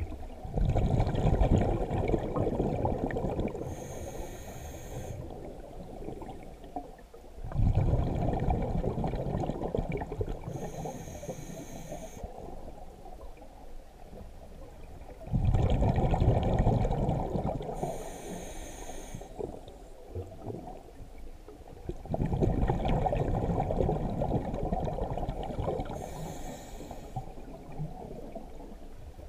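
A scuba diver breathing through a regulator underwater. Four bubbly exhalations come about seven seconds apart, each starting suddenly and trailing off, and a short whistling hiss of the inhale through the demand valve falls between them.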